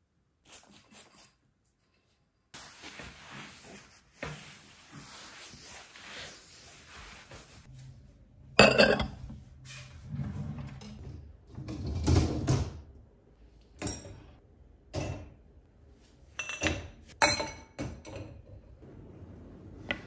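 Ceramic bowls and dishes knocking and clinking as they are stacked and put away on a cupboard shelf: a string of sharp knocks, the loudest about a third of the way in and again a few seconds later. Before them come a few small clicks, then a few seconds of steady hiss.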